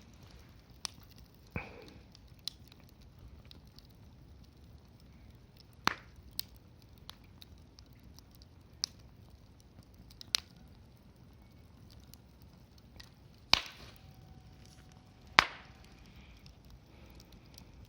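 Wood campfire burning, with sharp, irregularly spaced pops and snaps over a quiet background; the two loudest pops come near the end.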